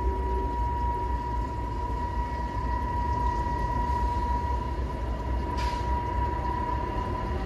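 Diesel freight train approaching, its low engine rumble steady, with a steady high whine above it. A brief hiss about five and a half seconds in.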